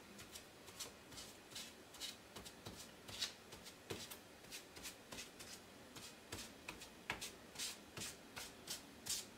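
A damp paper towel dabbed and rubbed over a smooth puzzle piece covered in painter's tape, spreading a thin layer of light blue paint and sealing the tape edges: quiet, irregular soft taps and scuffs, a few each second.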